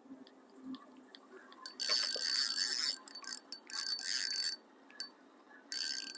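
Fishing reel being cranked in three short spurts of about a second each, a high whirring with a steady whine, as line is wound in on a fish.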